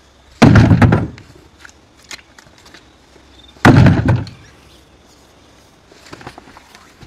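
Two loud, deep thumps about three seconds apart, each starting suddenly and dying away within about half a second.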